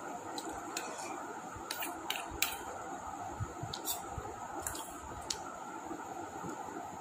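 Close-up eating sounds: scattered wet clicks and smacks of chewing, about eight in all, over a steady background hum.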